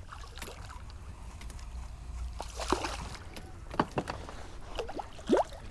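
A few sharp knocks and handling noises on a fishing kayak, over a low steady rumble.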